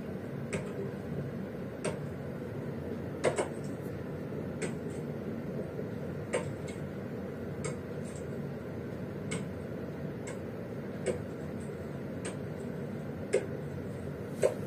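Gree Soyal air conditioner running in heating mode: a steady low rush with sharp ticks at uneven intervals, about one every second or so.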